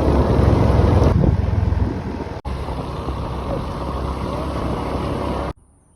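A motor engine running steadily under loud rushing noise. There is a brief dropout about two and a half seconds in, and the sound cuts off abruptly near the end.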